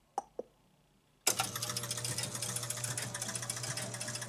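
Two light clicks as the coin switch is pressed, then a little over a second in an electromechanical pinball machine, a 1966 Gottlieb Mayfair, starts up suddenly: a steady, rapid mechanical chatter of its score motor and relays over an electrical hum. The machine keeps running on without completing its start-up, stuck halfway working.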